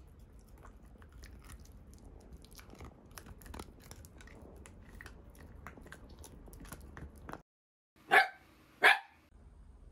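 Italian greyhound gnawing a deer antler: soft crunching and scraping with many small clicks of teeth on the hard antler. Near the end, after a sudden dead silence, two short loud barks come about a second apart.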